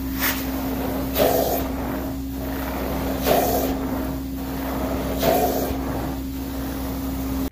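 Carpet extraction machine running with a steady vacuum drone while the cleaning wand is worked over carpet in strokes. A hissing surge of spray and suction comes about every two seconds.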